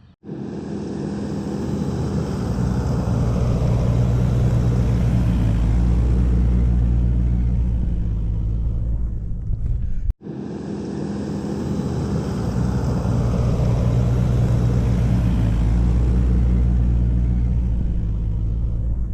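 Jeep Liberty's engine running under load with a steady low drone, building in level over the first few seconds as it drives up a steep off-road track. The sound cuts off abruptly about halfway through and then starts again in the same way.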